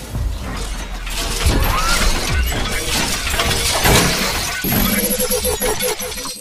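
Sound effects for an animated logo intro: a run of crashing, shattering hits over a steady deep rumble, with music underneath.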